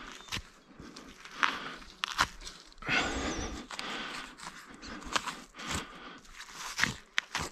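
Hunting knife cutting and hide being peeled back along a sika stag's spine, heard as irregular crunching and tearing with a few sharp clicks and a longer rustling stretch about three seconds in.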